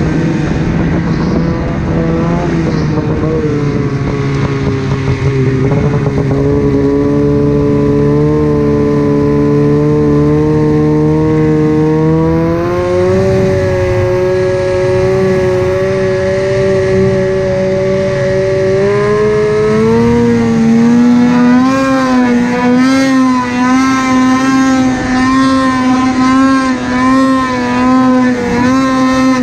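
Snowmobile engine running hard at high revs while riding through powder. Its pitch climbs about halfway through, then rises again and surges up and down in the last third as the throttle is worked on an uphill pull.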